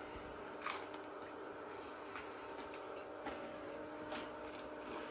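Quiet room tone: a faint steady hum with a few soft, irregular clicks and rustles.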